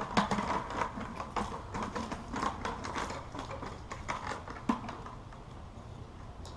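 A stringer of white bass lowered into a plastic bucket: a quick, irregular run of slaps, knocks and rattles as the fish hit the bucket and each other, busiest in the first three seconds and thinning to scattered knocks as they are handled.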